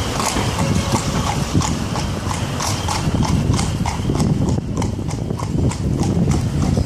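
Shod hooves of a carriage horse clip-clopping on a wet paved street in an even rhythm of about four strikes a second, over a low rumble.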